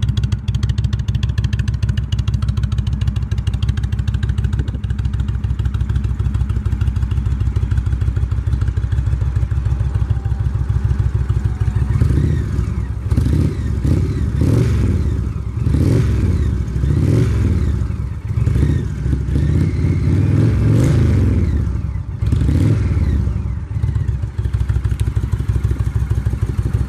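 2015 Indian Roadmaster's Thunder Stroke 111 V-twin running through a custom exhaust: it idles steadily, then from about halfway through it is revved in a string of quick throttle blips, about one a second, with one held a little longer near the end.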